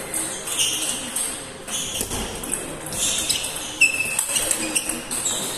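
Table tennis ball clicking off paddles and the table in a rally, many quick sharp taps, with more ball taps from other tables in the hall mixed in.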